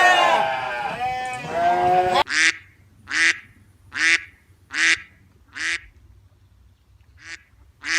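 Ducks quacking: several overlapping calls at first, then after a sudden cut a single duck quacking in short, evenly spaced quacks, a little under one a second.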